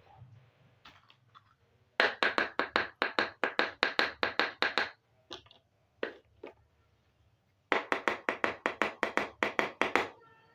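Two runs of rapid light taps, about five a second, made by handling small hard pieces of a miniature toy kitchen set.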